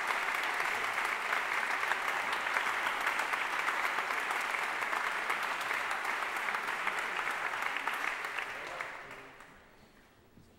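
Audience applauding steadily in a concert hall, then dying away about nine seconds in.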